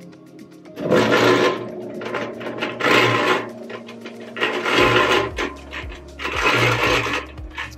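Harbor Freight 3.5 cubic foot electric cement mixer running empty. The drum's gear teeth mesh with the drive sprocket in a loose notch fit and make a loud rattling grind that swells about every two seconds as the drum turns. The owner takes this for normal in a new mixer, one that should wear in over time.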